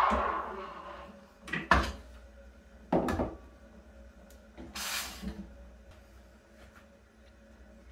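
An espresso machine's steam wand hiss swells and dies away within the first second as the wand is shut off. Then come a few sharp knocks as the stainless milk pitcher and cup are handled on the machine and counter, and a short hiss about five seconds in.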